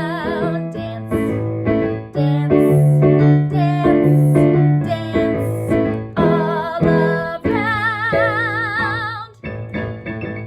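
Keyboard and piano music playing an instrumental section of a movement song. The notes change several times a second, and a wavering held tone sounds near the start and again about eight seconds in.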